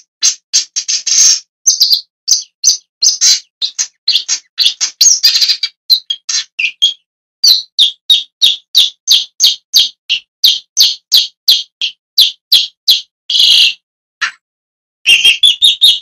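Shrike, likely a long-tailed shrike, giving a long run of short harsh calls at about two a second, with a brief pause near the end.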